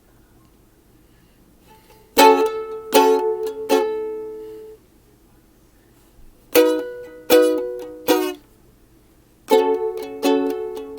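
Ukulele strumming chords: three strokes left to ring, a pause, three more, then a steady strumming rhythm near the end, the intro to a song.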